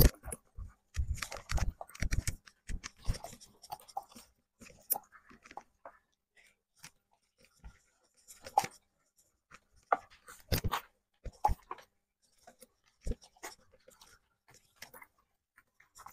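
A Dalmatian eating kibble from a plastic slow-feeder bowl: irregular crunching and chewing with sharp clicks. The crunching is busy for the first few seconds, then comes in sparser bursts.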